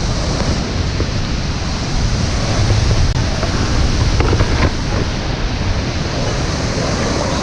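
Waterfall's falling water rushing steadily, with a low wind rumble on the microphone.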